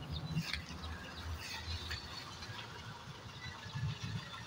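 Faint outdoor ambience with scattered high bird chirps over a low rumble.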